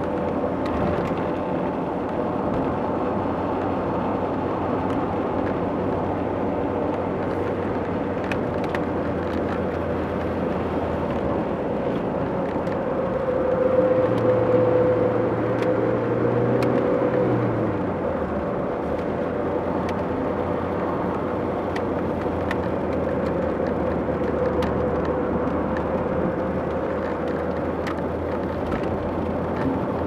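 Cabin noise of a car being driven: a steady hum of engine and road noise. It grows a little louder for a few seconds around the middle, then settles back.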